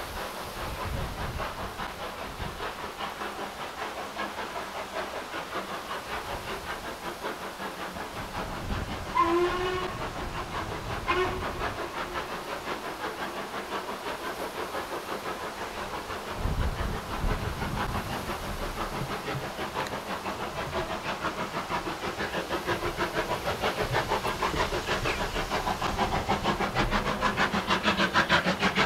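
Steam locomotive working towards the listener, its exhaust beating in a fast, even chuff that grows louder as it nears. Two short blasts on its steam whistle sound about nine and eleven seconds in.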